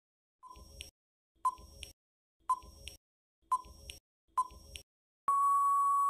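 Quiz countdown timer sound effect: five short beeps about a second apart, then one longer steady beep as time runs out.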